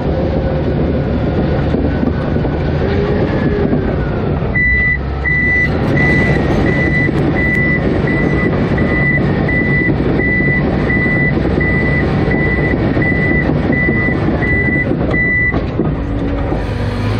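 Komatsu D155AX crawler bulldozer running loud and steady, its back-up alarm beeping evenly about one and a half times a second from about four seconds in until shortly before the end, the sign that it is reversing.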